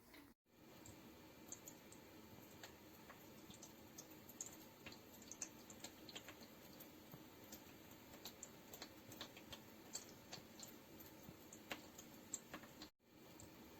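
Faint steady hum from a running ultrasonic humidifier, with many soft, irregular ticks on top. The sound drops out briefly about half a second in and again near the end.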